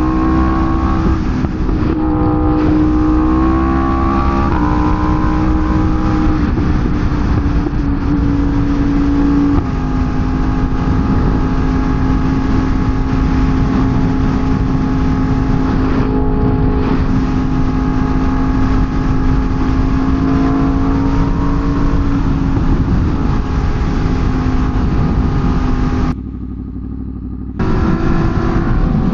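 Sportbike engine heard from the rider's mic while riding, its pitch stepping through the gears in the first ten seconds and then holding a near-steady cruise, over a steady rush of wind noise. About 26 seconds in the sound goes muffled and quieter for a second or so before coming back.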